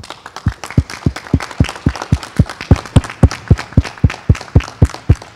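A small group of people applauding, with one person's hand claps close to a microphone standing out at about four claps a second.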